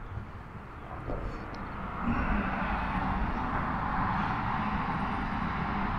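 Electric trolling motor on a fishing kayak running, with a steady hum and a rushing wash that swell about two seconds in, then hold steady.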